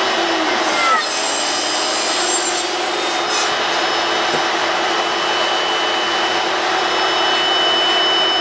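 Steady, loud whirring of power tools running in a workshop, with a few constant tones in it, and a short falling whine about a second in as something spins down.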